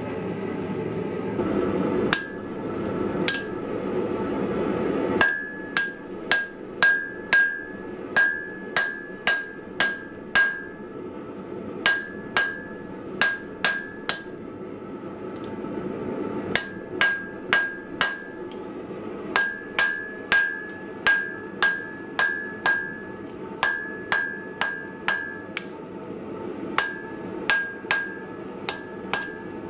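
Hand hammer striking red-hot coil-spring steel on an anvil to straighten it: runs of sharp, ringing blows, about two a second, broken by short pauses. A steady rushing noise runs underneath and is loudest in the first few seconds, before the hammering starts.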